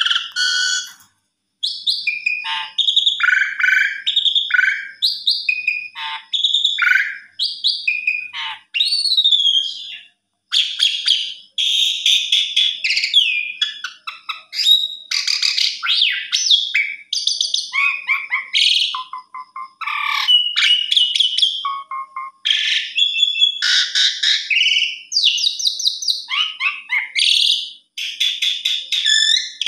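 Asian pied starling (jalak suren) singing a long, varied song: rapid chattering rattles mixed with whistled notes and rising and falling glides, broken by short pauses.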